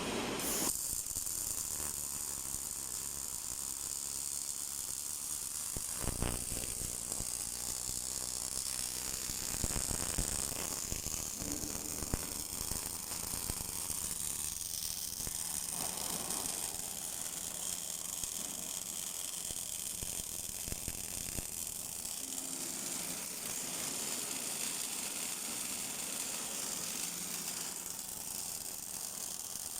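Automatic MIG welding machine welding scaffolding ringlock ledgers: a steady crackling, sizzling arc hiss over a faint machine hum, with a few knocks from the machinery.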